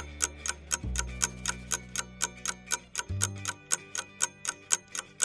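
Quiz countdown timer: a clock-ticking sound effect with quick, even ticks over background music with sustained low bass notes that change every couple of seconds.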